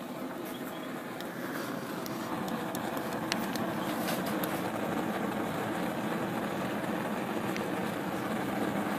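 Homemade propane forge burner, built from 3/4-inch pipe with a 1/4-inch jet tube, running lit inside a small refractory-lined forge with a steady rushing noise. It grows louder over the first few seconds, then holds steady, with a few faint ticks.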